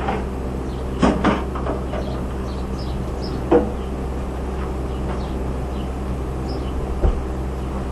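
Hobart Stickmate stick welder humming steadily while switched on but not striking an arc, with a few short metallic clanks and knocks: two about a second in, one near the middle and one near the end.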